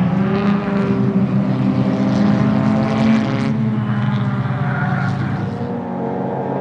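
Lada 2101 race car's 1600 cc four-cylinder engine running hard on track. The revs climb for about three seconds, then fall away, and the engine runs lower and a little quieter near the end.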